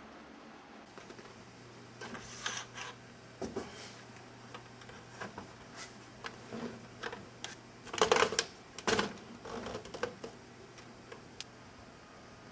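Irregular clicks and knocks of a plastic indoor TV antenna being handled by hand, loudest in a cluster about eight to nine seconds in, over a faint steady low hum.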